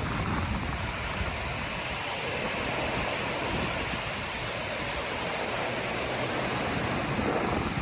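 Atlantic Ocean surf with wind: a steady, even rush of noise with no distinct wave crashes.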